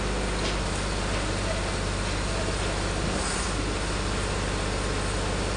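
Steady outdoor background noise with a constant low hum and hiss.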